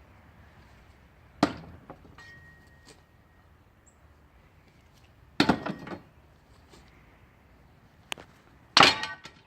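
Thrown knives striking a wooden target: three sharp thunks a few seconds apart, the last the loudest with a brief metallic ring.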